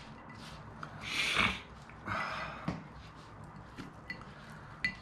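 Hands mixing raw sliced beef with soy sauce and steamed-rice powder in a glass dish. Two short hissy rushes of noise come about a second and two seconds in, the first the loudest, and a few light clicks of containers follow near the end.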